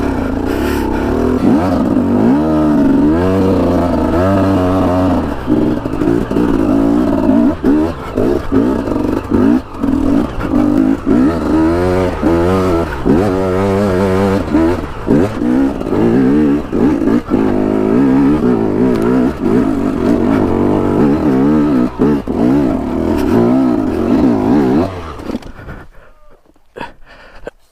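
KTM two-stroke enduro motorcycle engine riding a rough trail, revving up and down again and again with quick throttle changes, with knocks and rattles from the bike over the ground. About 25 seconds in the engine drops away to a much quieter level.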